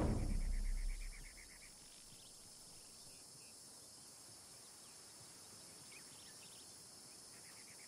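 Faint outdoor nature ambience: a steady soft hiss with a quick run of insect-like chirps in the first couple of seconds and a few scattered faint bird chirps. A louder rushing sound fades out over the first second.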